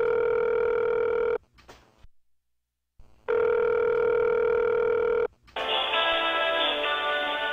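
Telephone ringback tone heard over the line: two long steady rings of about two seconds each, with a pause between. A little before the end, hold music begins, thin and muffled through the phone line.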